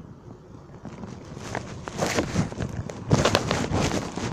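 Wind buffeting the phone's microphone on a moving motorcycle: a crackling rush that builds from about a second in and grows louder and choppier toward the end.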